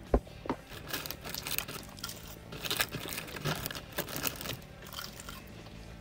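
A person eating close to the microphone: a sharp click just after the start as a boiled egg is bitten off the chopsticks, then a few seconds of chewing with crackly, crunchy mouth sounds that fade out near the end.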